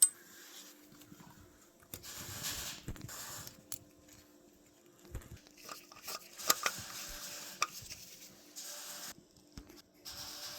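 Scattered light clicks and short stretches of rustling from parts and tools being handled, over a faint steady hum.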